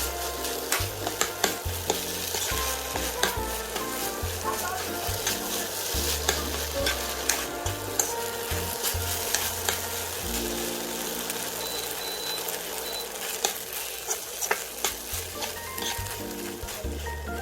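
Cup-ramen fried rice sizzling in a frying pan while a spatula stirs it, with frequent short clicks and scrapes against the pan.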